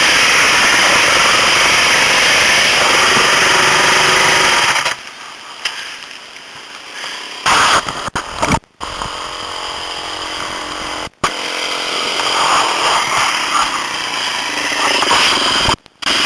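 Trail motorcycle engine running, with heavy wind noise on the microphone for the first five seconds. After that it is quieter and the engine note rises and falls. The sound drops out briefly three times.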